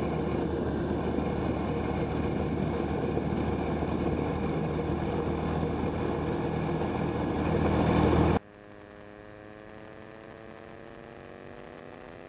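Zenith STOL CH 701's Rotax 912S flat-four engine and propeller running steadily at taxi power, a loud even drone. About eight seconds in the sound cuts off abruptly to a much quieter engine hum whose tones slowly rise in pitch.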